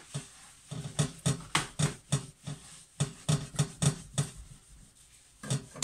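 Non-scratch sponge scrubbing a greasy oven door glass in quick back-and-forth strokes, about three a second, easing off about four seconds in.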